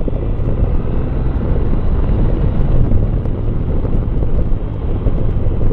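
BMW R1200R boxer-twin motorcycle engine running steadily at road speed, mixed with wind rushing over a helmet-mounted microphone.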